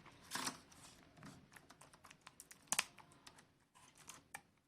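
Laptop keyboard key being pressed and snapped onto its plastic retainer clips: a scatter of small sharp plastic clicks, loudest about half a second in and again near three seconds in.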